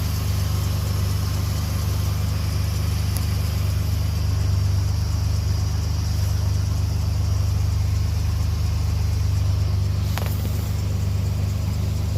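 A car engine idling steadily, a loud, even low hum. A faint brief falling tone comes about ten seconds in.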